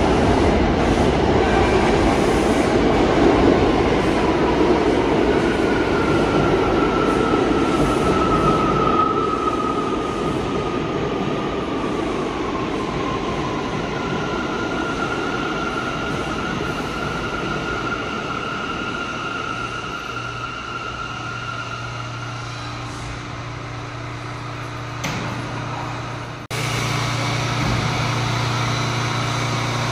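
New York City subway train running on the rails with a heavy rumble that slowly fades, joined by high, thin squealing tones from the wheels. About three-quarters of the way through, the sound cuts abruptly to a steady low hum.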